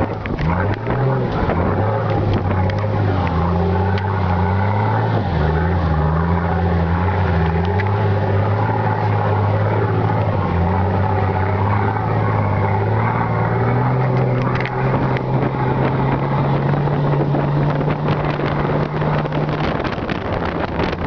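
Nissan Patrol Y60's straight-piped diesel exhaust while driving, the engine note rising and dropping several times, then holding a steadier note for several seconds near the end.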